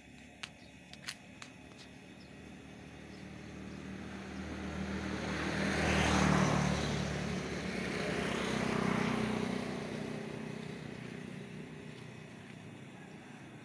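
A road vehicle passing by: its engine and tyre noise swell up over a few seconds, peak in the middle, swell a second time, then fade away. A few faint clicks near the start.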